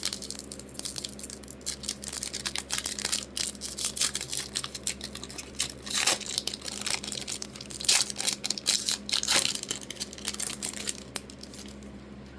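Sports-card pack wrapper being torn open and crinkled by hand: a dense run of crackling and rustling that dies down about eleven seconds in.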